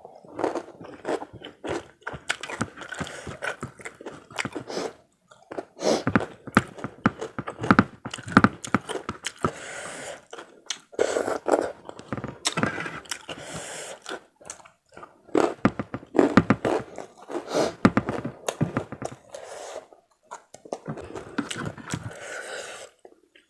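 A person eating close to the microphone: crunching bites and chewing of karedok raw vegetable salad with rice and crackers, in irregular clusters with short pauses.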